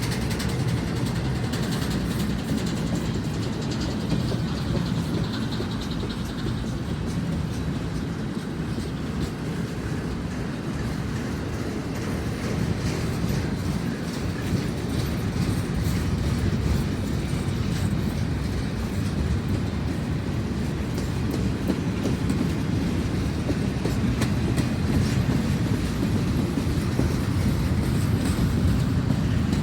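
CSX intermodal freight cars rolling slowly past, a steady low rumble with wheels clicking over the rail joints.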